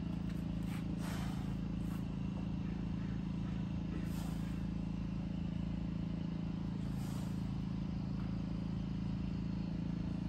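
A steady low hum, with a faint short hiss about every three seconds.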